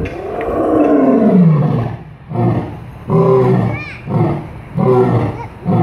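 Male lion roaring: one long call about two seconds long that falls in pitch, followed by a series of shorter grunting calls about a second apart.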